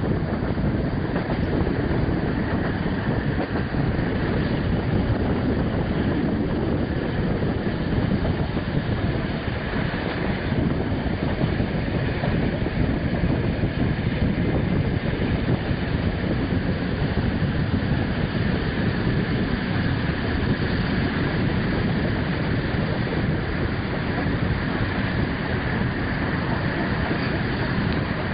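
Regional passenger train running along the track, heard from inside the carriage: a steady noise of the wheels on the rails.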